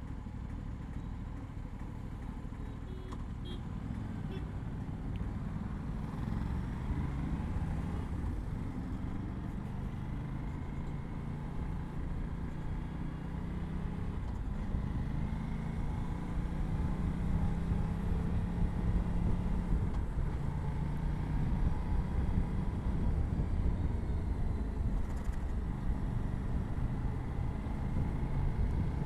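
Aprilia RS 457's parallel-twin engine through its stock exhaust, running at low revs in city riding, the pitch easing up and down with small throttle changes and growing gradually louder, with wind and road rumble underneath.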